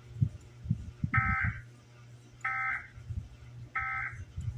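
Emergency Alert System end-of-message (EOM) data bursts: three short, identical buzzy bursts of digital tones, about 1.3 seconds apart, marking the end of the alert broadcast. A low hum runs underneath.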